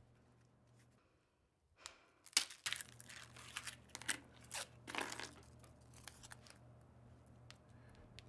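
A fortune cookie being snapped and broken apart by hand: a run of sharp, crisp crackles starting about two seconds in and lasting about three seconds, then softer rustling as the pieces and paper slip are handled.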